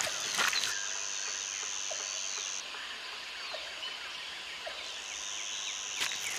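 Outdoor ambience: a steady high-pitched buzz, typical of an insect, that stops about two and a half seconds in and comes back near five seconds, over many faint bird chirps. Scattered rustling clicks come in the first moment and again near the end.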